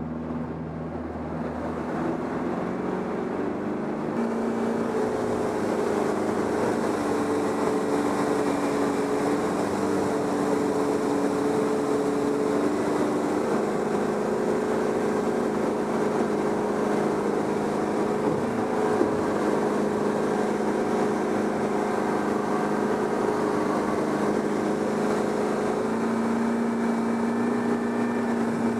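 Motorboat engine running steadily under a rush of noise, its pitch shifting slightly a few times.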